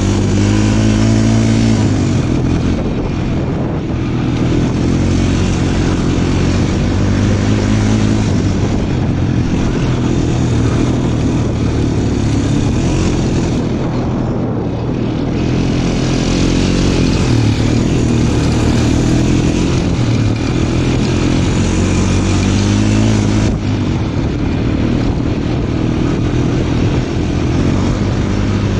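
Small off-road vehicle engine running steadily while being ridden. Its pitch rises over the first couple of seconds, eases off briefly about halfway through and changes suddenly near the end.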